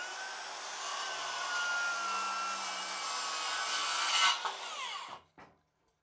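Bosch GKS 185-LI cordless brushless circular saw, fitted with a Bosch Standard for Wood blade, cutting through a construction timber beam: a steady motor whine under load over the rasp of the blade in the wood for about four seconds. Just after four seconds the blade comes free with a short louder burst and the motor winds down, falling in pitch.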